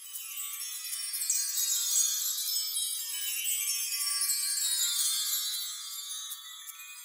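Intro music of tinkling chimes and jingling bells, all high in pitch, swelling a little about a second in.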